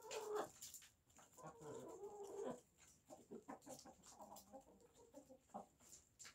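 Domestic hens clucking softly as they feed: a longer, drawn-out call in the first few seconds, then a string of short clucks.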